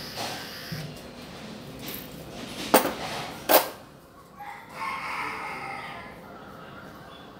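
Two sharp knocks a little under a second apart, then a drawn-out animal call lasting over a second.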